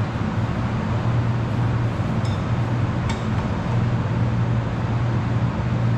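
Steady low machine hum, like a motor or fan running, with two light metallic clinks a little under a second apart near the middle.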